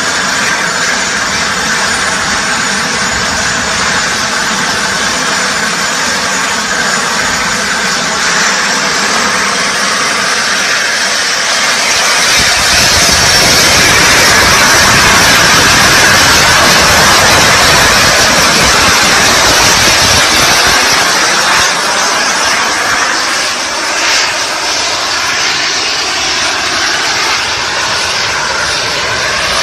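Small jet turbines of a Flyboard Air hoverboard running, a loud steady roaring rush with a thin high whine over it for the first eight seconds or so. The rush grows louder from about twelve seconds in for several seconds, then settles back.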